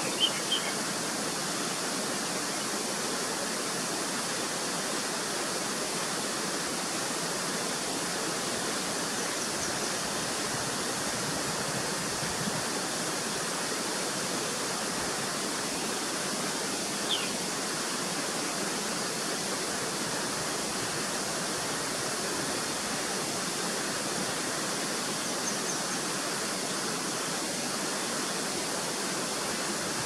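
Steady rush of running water, unbroken throughout, with a few short bird chirps over it: two just at the start and a brief call sliding down in pitch about halfway through.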